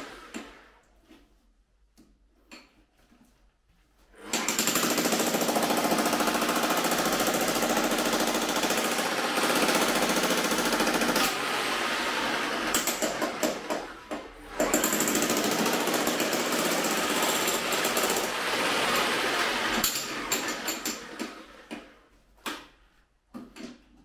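Makita HM1812 electric demolition hammer breaking up a rock floor with its chisel. It starts about four seconds in and hammers in two long runs split by a brief pause near the middle, then stutters in short bursts and stops near the end.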